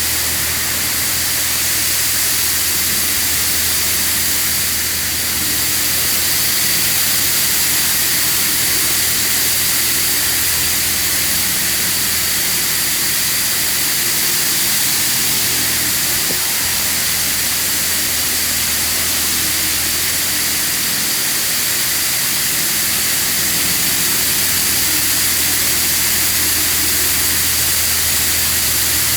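High-pressure water jets from a Mariner touch-free car wash spraying steadily with a loud hiss, over the low steady hum of the wash's pump.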